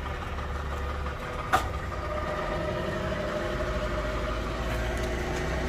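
Boat motor running steadily while the boat moves through the water, with a single short click about one and a half seconds in.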